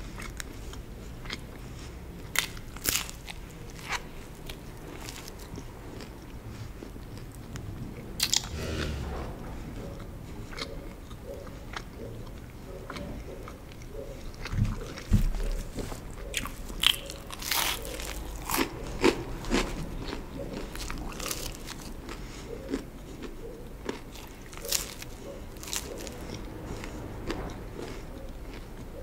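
Biting and chewing a margherita pizza slice: sharp crunches of the crust scattered through, coming thickest and loudest about halfway through, over the softer steady sound of chewing.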